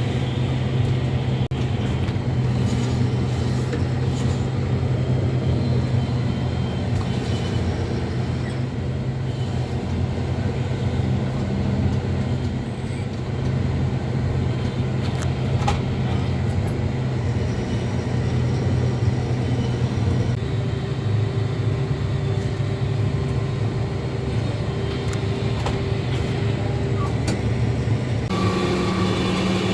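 A vehicle engine running steadily, a continuous low hum. The hum shifts twice, about two-thirds of the way through and again near the end.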